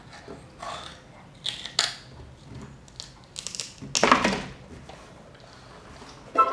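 A small child biting into and crunching raw broccoli: a few crisp crunches and tearing sounds, the loudest about four seconds in.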